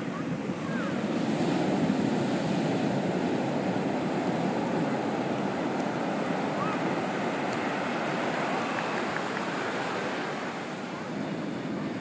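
Ocean surf breaking and washing up the beach, a steady rushing noise that swells about a second in and eases slightly near the end.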